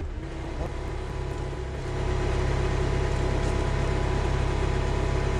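Diesel skid steer engine running steadily nearby, getting louder about two seconds in and then holding.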